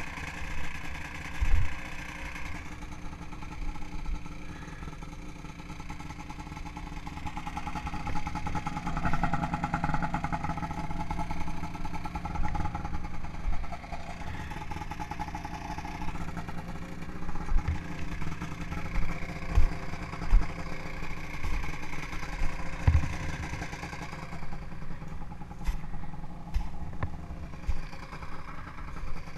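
Ski-Doo snowmobile's Rotax 583 twin-cylinder two-stroke engine running steadily at low speed, with its engine note picking up for a few seconds near the middle. A few dull thumps stand out over it.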